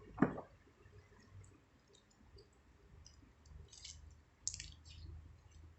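Faint clicking and two short crinkly rustles, about 4 and 4.5 seconds in, from small items and their packaging being handled during an unboxing, after a brief vocal sound at the very start.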